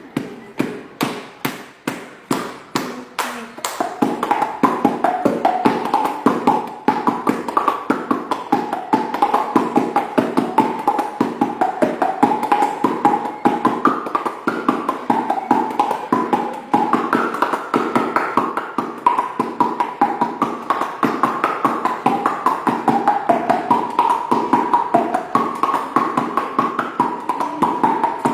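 A fast, even tapping or clicking beat, joined about four seconds in by a wavering tune carried over it, like a child's mouth-made percussion and melody.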